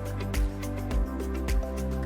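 Background music with a steady beat of a little under two beats a second, over a bass line and held chords.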